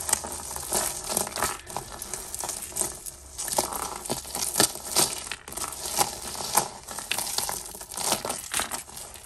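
Tangled costume jewellery being handled and pulled apart: irregular clicking and clattering of plastic beads and chains against each other, mixed with crinkling rustles.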